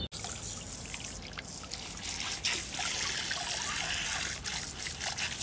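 Water poured from a plastic bottle trickling over a chicken's foot and splashing into the pool of water below, rinsing the foot clean before a bumblefoot abscess is treated.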